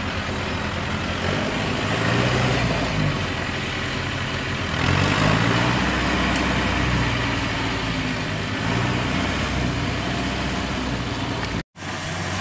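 Engine of a tracked rice-hauling carrier loaded with sacks of paddy, running under load as it climbs and drives past, its note rising and falling.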